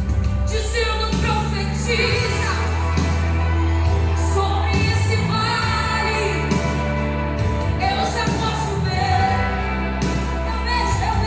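Christian worship song playing: a band with a held bass line and a steady drum beat, and a voice singing over it near the start and again near the end.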